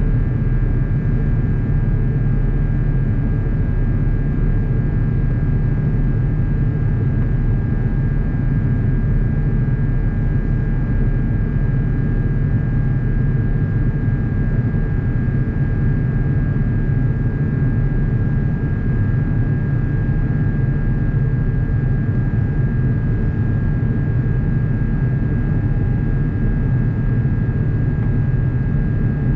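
Steady cabin noise of an Airbus A350-900 in flight, heard from a window seat beside the wing: the low, even rumble of its Rolls-Royce Trent XWB engines and rushing air, with a faint steady whine on top.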